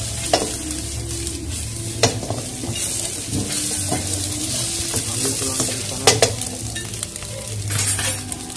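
Egg, cabbage and sausage sizzling in a hot wok while a wooden spatula stirs and scrapes them, with three sharp knocks of the spatula against the pan over a steady low hum.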